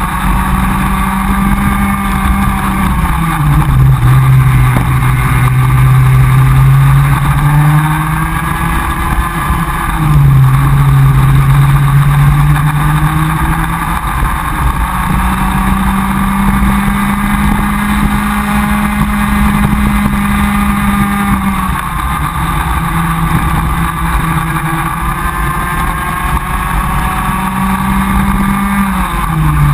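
Comer cadet kart's two-stroke engine, heard onboard at racing speed: the revs drop several times for corners and climb back along the straights, with a long steady run near full revs in the middle.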